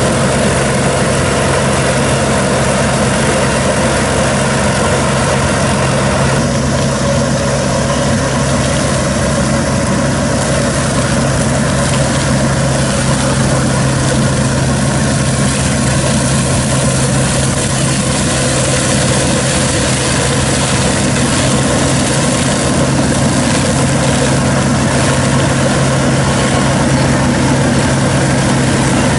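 A KANEKO crawler hammer-knife mower running steadily, its engine and spinning flail rotor making a constant low hum as it drives through and cuts down weeds and brush.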